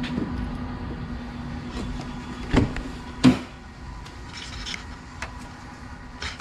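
Car door being opened: two sharp clunks a little under a second apart, over a steady low hum that fades out around the second clunk.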